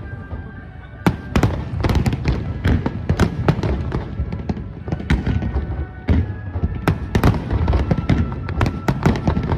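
Aerial fireworks bursting in rapid succession: dense sharp bangs and crackles over deep booms, starting about a second in, with the show's music playing underneath.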